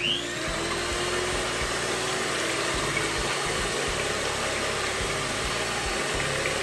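Electric hand mixer switched on, starting with a short rising whine and then running steadily as its beaters whisk eggs into foam.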